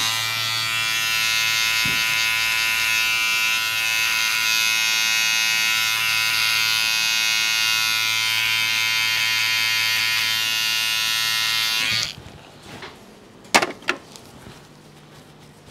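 Electric hair clipper running with a steady buzz as it trims hair at the back of the neck, cutting off suddenly about twelve seconds in. Shortly after, two sharp clicks.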